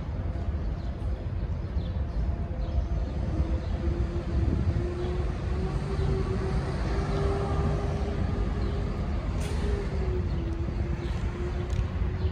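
Distant vehicle noise: a low rumble throughout, with a steady whine that comes in about three seconds in and wavers slightly in pitch.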